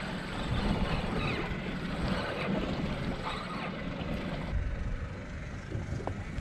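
Wind buffeting the microphone over open water, a steady low rumbling rush, with a few faint clicks from the spinning rod and reel being worked.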